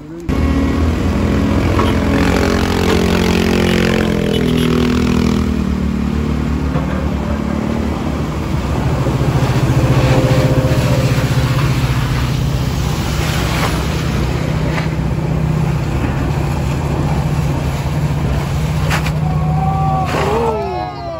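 Toyota Hilux pickup engines pulling hard up a very steep grade. The engine note shifts up and down over the first few seconds, then settles into a steady loud drone. A couple of sharp knocks come later, and voices call out near the end.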